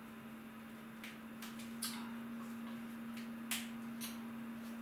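A few sharp clinks and knocks of crockery and utensils being handled on a kitchen counter, about five in all, the loudest about three and a half seconds in, over a steady low hum.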